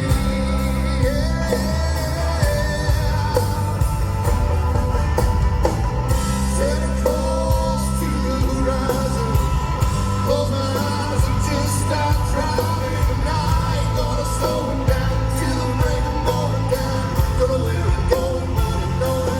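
Live rock band playing a song at full volume, with drums keeping a steady beat under bass and a lead melody line.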